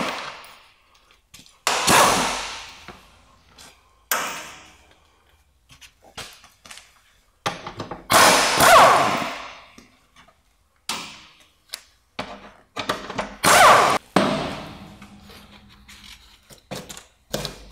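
Plastic engine undertray (belly pan) and its clips being pried loose and pulled off a car: a string of loud knocks and thunks a second or more apart, with smaller clicks between them. There is one longer scraping stretch about eight seconds in.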